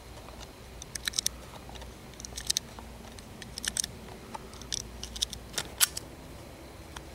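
.380 ACP cartridges being pressed one at a time into a micro pistol's magazine: short sharp metallic clicks, in small groups roughly once a second.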